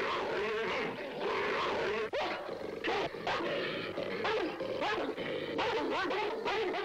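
Dog snarling and barking savagely in a rapid run of short bursts, with music underneath.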